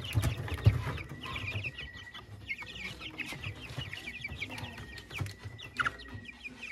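A flock of month-old Rhode Island Red chicks peeping continuously in many short, falling calls, with a couple of low bumps in the first second.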